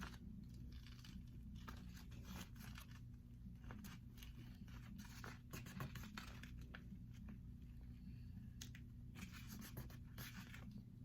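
Faint scratching, rubbing and crinkling of vinyl transfer mask being worked onto a wooden sign by hand, made of many short scratchy ticks and brief rustles, over a steady low room hum.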